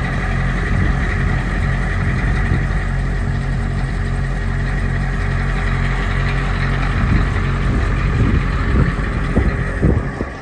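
School bus engine idling steadily, with a few low thumps near the end.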